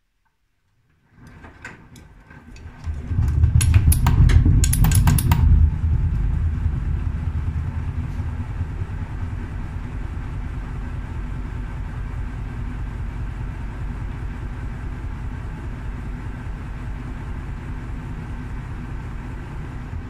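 Gorenje front-loading washing machine's drum starting to turn with a big jacket as an unbalanced load: a few seconds of sharp knocking and banging as it speeds up, then a steady low rumble.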